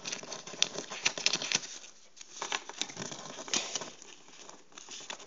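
Irregular rustling and small ticks of fingers handling paper football stickers close to the microphone.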